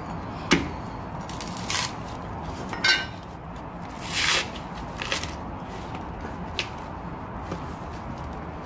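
Dried coconut husk being pried and torn apart by hand: a series of separate sharp cracks and fibrous tearing scrapes. The sharpest crack comes about half a second in, and a longer tearing rasp about four seconds in.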